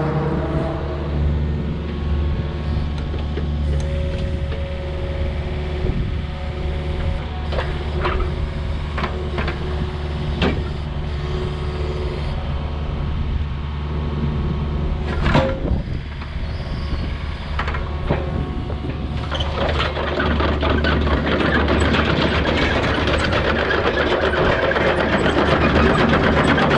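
Yanmar ViO45-6A mini excavator's diesel engine running steadily, with a few sharp knocks near the middle. The sound grows louder and rougher about two-thirds of the way through, as the machine works harder.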